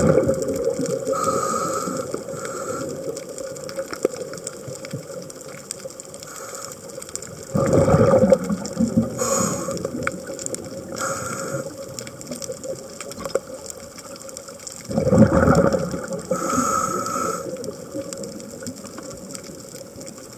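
Scuba diver breathing through a regulator underwater. Three bursts of exhaled bubbles come roughly seven seconds apart, near the start, about eight seconds in and about fifteen seconds in, each followed by a hissing inhalation. A steady faint hum and many small clicks run underneath.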